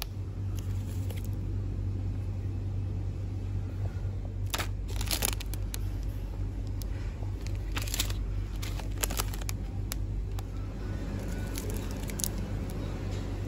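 Plastic snack wrappers crinkling as they are handled, in several short bursts, over a steady low hum.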